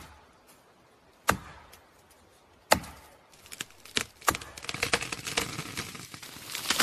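Recorded axe chopping into wood: four sharp chops spaced roughly a second or so apart. From about two-thirds of the way in they give way to a growing crackle of wood splintering as the tree gives way.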